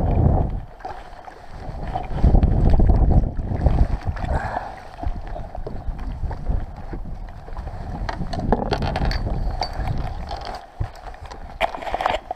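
Wind buffeting the microphone in gusts over water lapping against a small fishing boat's hull, with a few knocks near the end as a landing net is lifted aboard.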